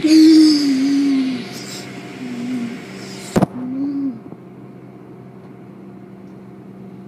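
Car wash machinery heard from inside a car: a steady hum with a hiss of spraying water that drops away about four seconds in. A person's voice makes a few short, wordless gliding sounds in the first four seconds, and there is one sharp click about three and a half seconds in.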